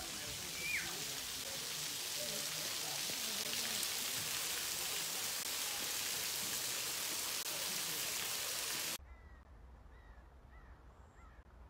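Steady rushing hiss of a waterfall and stream running through an icy canyon, with a short high call about a second in. It cuts off suddenly about nine seconds in, leaving a much quieter background of a low rumble and a few faint bird chirps.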